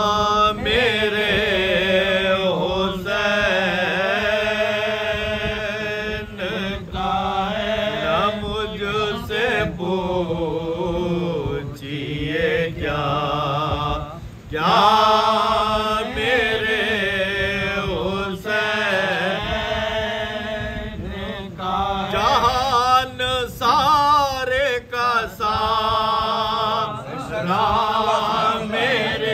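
Soz: men's voices chanting an unaccompanied Muharram lament, a lead singer with his chorus. The phrases are long, with held notes that bend in pitch and short breaks between them.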